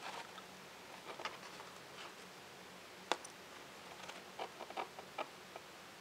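Faint scattered clicks and small taps of hands handling pliers, solder wire and a bullet connector on cardboard, sharpest about three seconds in and bunched near the end, over a faint steady low hum.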